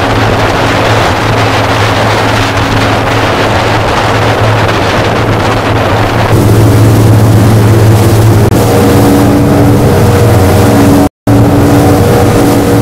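Motorboat engine running steadily under way, with the rush of wind and water over the hull. About six seconds in the engine hum becomes stronger and the hiss above it lessens, and near the end the sound cuts out for a split second.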